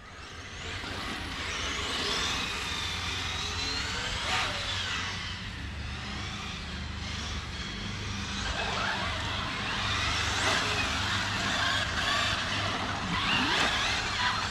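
Brushless electric RC cars driving, their motors whining up and down in pitch as they accelerate and back off, over a steady hiss.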